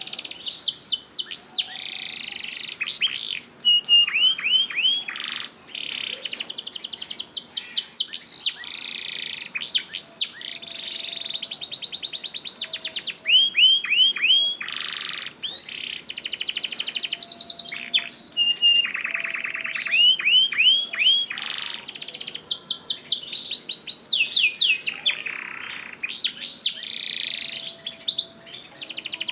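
Domestic canary singing a long, almost unbroken song of rapid trills and fast series of falling whistled notes, with only a few short pauses.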